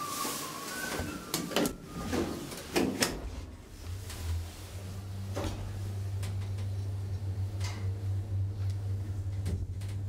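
Kone traction elevator: knocks and clicks of the door and car being entered, then a steady low hum from about four and a half seconds in as the car starts and travels, with a few single clicks.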